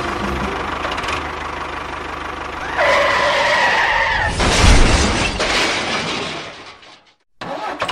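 A small engine running with a steady low pulse. About three seconds in, a held tone sounds for a second and a half. Then comes a loud rushing noise with a heavy thump, and the sound fades out to silence near the end.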